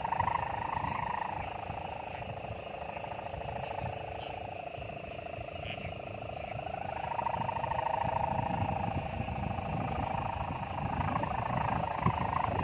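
Kite hummer droning in the air: a buzzing tone whose pitch slowly wavers up and down, dipping and softening about five seconds in, then swelling again.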